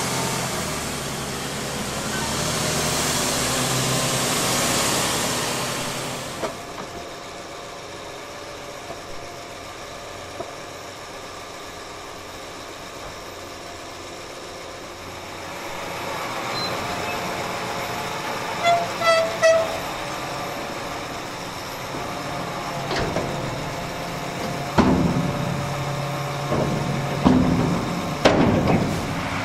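Large diesel farm machinery running during forage maize harvest, a forage harvester and tractors with trailers. The machinery is loud for the first few seconds and drops suddenly to a quieter running sound. Three short horn toots come a little past the middle, and engine sounds shift near the end.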